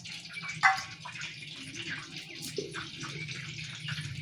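Small knife clicks and scrapes as garlic cloves are peeled and cut by hand, over a steady hiss. One sharp click stands out about two-thirds of a second in.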